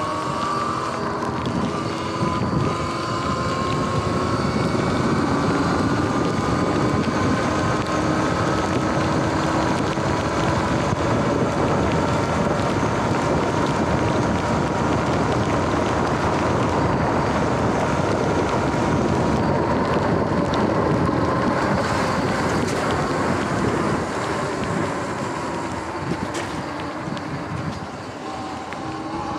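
Electric dirt bike under way: the motor's whine drifts in pitch with speed over the hiss of tyres on wet pavement and wind on the microphone. Near the end the whine drops and the sound quietens as the bike slows.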